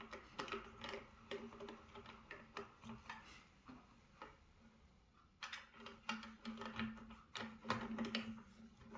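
A ratchet wrench clicking faintly in quick runs as a button-head bolt is tightened down, with a lull of a second or two in the middle.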